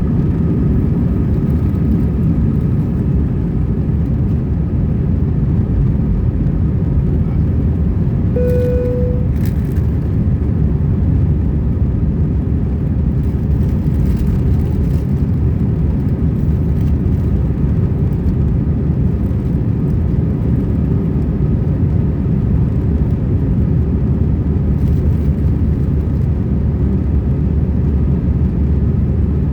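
Airbus A320 cabin noise: a steady low rumble of the engines and rushing air heard from inside the cabin, with a brief chime tone about eight seconds in.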